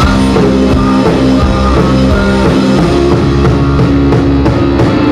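Live rock music played on an electric guitar and a drum kit, the guitar holding loud chords over a steady drum beat.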